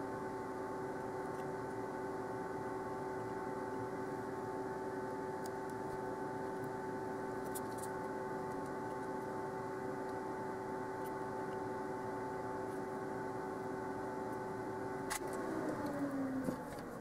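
Fume extractor fan motor running with a steady hum. About fifteen seconds in it clicks off and its pitch falls as it spins down.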